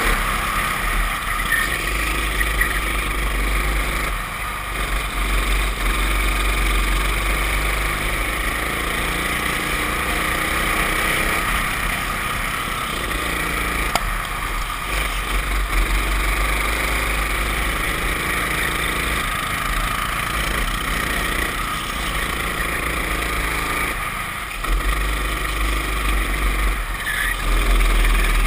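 Racing kart engine heard onboard at race speed. Its note drops and climbs again every few seconds as the throttle is lifted for corners and reopened, over a steady low rumble.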